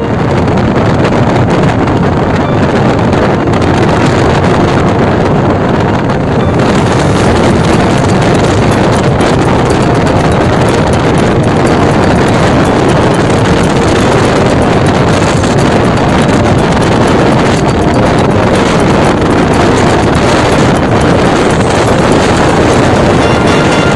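Loud, steady wind rush on the microphone of a rider moving at speed on a Yamaha NMAX scooter.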